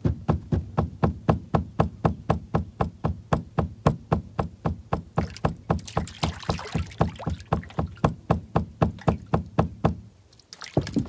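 A wooden stick pounded over and over on the deck of a bass boat, about four knocks a second, stopping about ten seconds in, with a couple more knocks near the end. This is "beating the boat": thumping the hull to draw fish to the rig.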